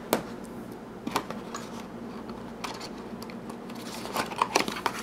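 Cardboard and paper packaging being handled on a table: a sharp tap as a booklet is set down, then scattered light clicks and rustles, with a quicker cluster near the end as a cardboard insert is lifted out of the box.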